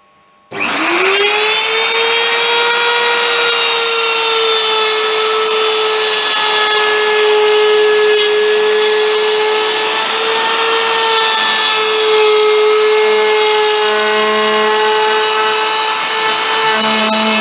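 Handheld electric router switched on about half a second in, its motor spinning up to a steady high whine, then running on with slight dips and wavers in pitch as the bit cuts a curve in wood.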